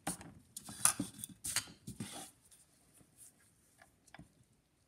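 Victor phonograph spring motor being rolled over by hand and set down on a wooden block: a handful of sharp metal clicks and knocks in the first two seconds, then a few faint ticks.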